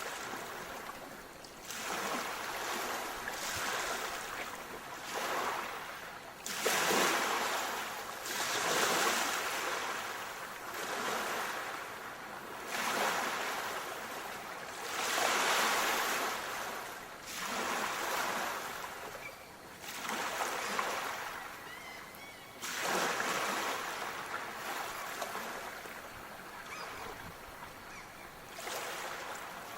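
Small sea waves washing onto a shore, each wave swelling and falling away every two to three seconds.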